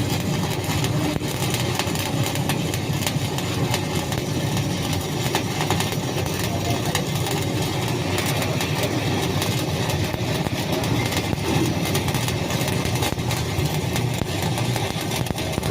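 Stick (SMAW) welding arc crackling and hissing steadily, over a low machine hum.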